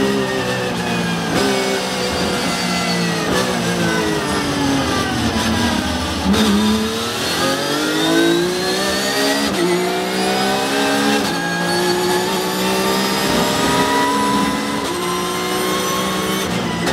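Porsche 911 GT3 Cup's flat-six racing engine, heard from inside the cockpit: the revs fall in steps through a series of downshifts under heavy braking for a slow corner. From about six seconds in they climb again at full throttle, with several upshifts.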